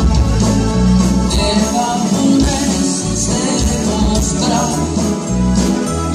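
Live Tejano band music, loud and even, with a steady beat of bass notes and cymbals.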